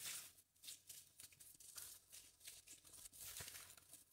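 Faint rustling and crinkling of gift wrapping as a package is handled and opened, in short scattered bits.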